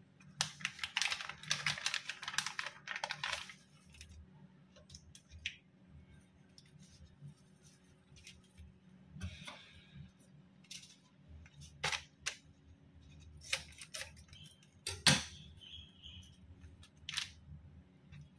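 Plastic spice sachet crinkling as it is handled and opened, a dense crackle lasting about three seconds. Then scattered soft clicks and taps of handling on a wooden chopping board, with one sharper click about fifteen seconds in.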